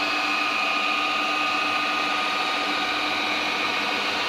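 Shoe-turning machine with its newly made shaft spinning steadily at about 2000 RPM, a constant motor hum with a steady high whine, on a test run in which the bearings run warm but not hot.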